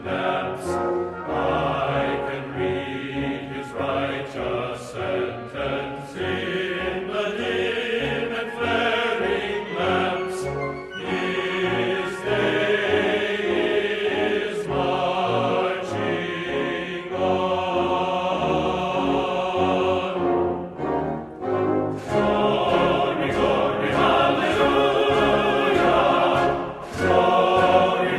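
Choral and orchestral music, with fireworks shells bursting as sharp pops and bangs scattered throughout over the music.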